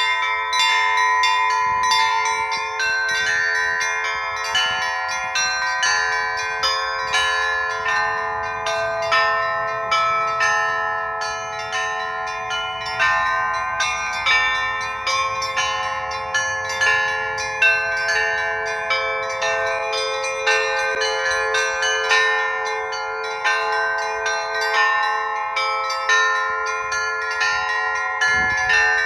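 Russian Orthodox church bells being rung (zvon): a quick, unbroken pattern of strikes, a few each second, on several bells of different pitch, their tones overlapping and ringing on.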